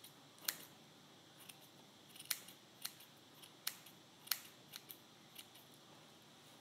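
Small scissors snipping through yarn, a series of faint, sharp snips at irregular gaps of roughly half a second to a second, as stray ends of a yarn pom-pom are trimmed to make it even.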